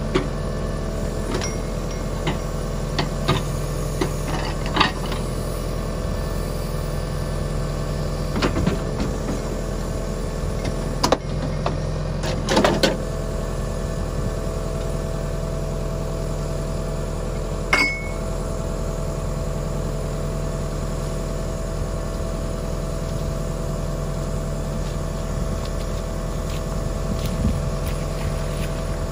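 John Deere 6300 tractor's four-cylinder diesel engine running steadily to power a rear-mounted backhoe. A scattering of short knocks and clanks from the boom and bucket comes in the first half.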